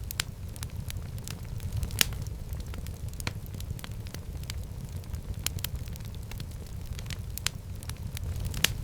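Wood fire burning in a fireplace: a steady low rumble of the flames with irregular sharp crackles and pops, one louder pop about two seconds in and another near the end.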